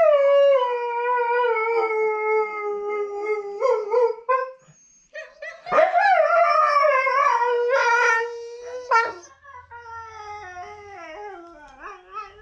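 Catahoula Leopard Dog howling. A long, loud howl slides down in pitch and trails off, then after a short break comes a second long howl, followed by quieter, wavering howls near the end.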